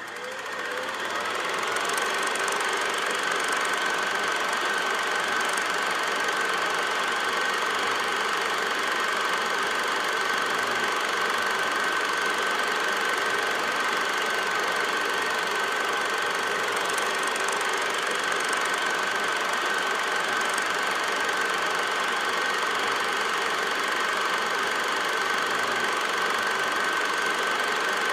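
8mm film projector running: a steady mechanical whir and clatter with a high, even whine, coming up to speed over the first couple of seconds and then holding level.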